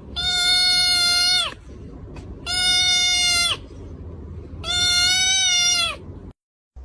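An animal calling three times: long, even-pitched calls of about a second and a half each, every one dropping in pitch at the end.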